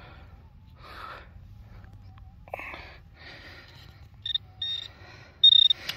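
Metal detector beeping on a target in the bottom of a hole: three short, steady high beeps in the second half, the last and longest the loudest. Before them, soft scuffs of dirt being moved.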